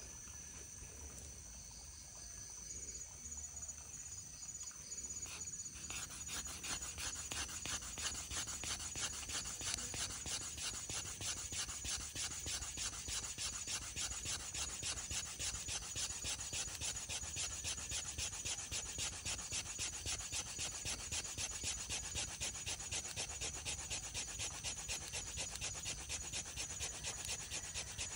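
Fire plow: a wooden stick rubbed fast back and forth in a groove along a bark-free wooden fire board, a rapid, even scraping rasp of many strokes a second. It starts quieter and irregular, then settles into the fast, steady stroke about six seconds in, working up the heat that sets the ground-out wood dust smoking.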